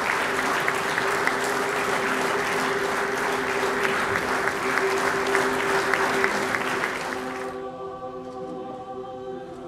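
A large audience applauding, with soft music of held notes underneath. About seven and a half seconds in, the applause cuts off suddenly and only the music's sustained chords remain.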